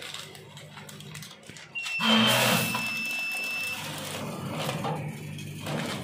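Automatic pouch packing machine running with a low steady hum. About two seconds in, a loud rush of noise sets in, carrying a high steady whistle-like tone for nearly two seconds, then the hum returns.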